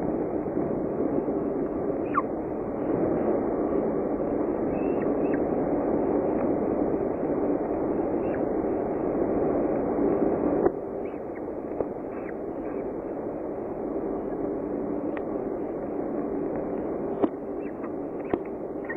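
Steady low rushing noise picked up by a nest-box camera's microphone, dropping slightly about halfway through, with a few faint clicks and ticks.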